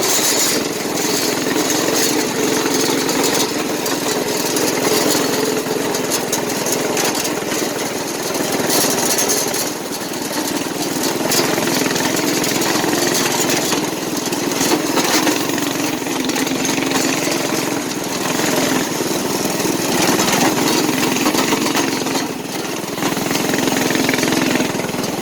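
Small gas engine running steadily while riding, its note rising and falling a little with the throttle, over a constant rushing hiss.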